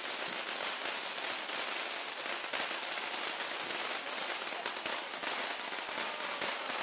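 Several ground fountain fireworks burning at once: a steady hiss of spraying sparks, dense with rapid crackling.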